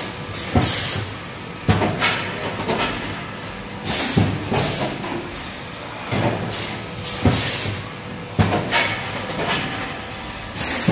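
Super Sealer REI 22VGF cup filling and sealing machine running through its cycle: sharp hisses of air and clunks repeat about every three seconds over a steady mechanical hum, typical of pneumatic cylinders firing and exhausting.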